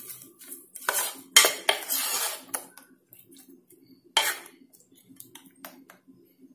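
A spoon scraping and knocking against the sides of a metal saucepan as a thick curd-and-coconut pachadi is stirred. The clatter is busiest in the first two seconds or so, with one more sharp knock about four seconds in and then lighter taps.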